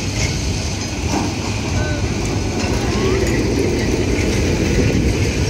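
Heritage tram rolling past close by on street-running rails, a steady low rumble of wheels and traction motors.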